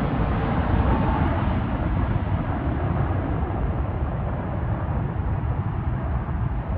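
Jet airliner on approach to land, its engines making a steady rumble that slowly fades as it moves away.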